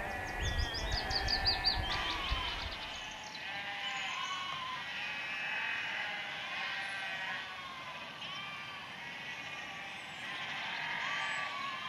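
A large flock of ewes and lambs bleating, many calls overlapping without a break. A low rumble sits under the first few seconds, along with a burst of high, rapid calls.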